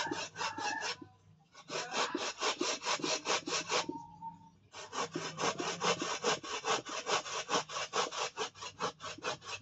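Fresh coconut rasped by hand on a flat grater, quick even scraping strokes about five a second, with two short breaks about one second and four seconds in.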